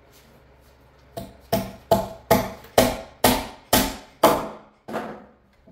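About nine sharp knocks on a wooden bench, two to three a second, growing louder and stopping shortly before the end: a bench leg being knocked into place.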